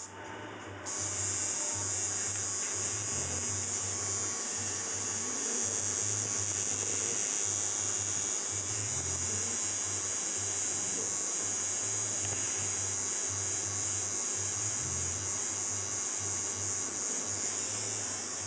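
Electric tattoo machine buzzing in short runs, starting and stopping again and again as the needle works over the skin.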